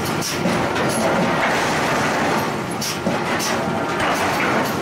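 Steady loud mechanical din of a forging shop's power hammer, with a few sharp metallic clanks as tongs and the hammer work a red-hot steel flange blank.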